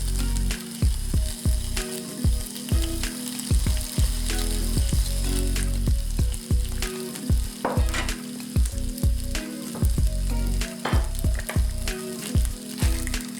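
Sausages sizzling as they stir-fry in a pan, with many short clicks and knocks as a utensil stirs them against the pan.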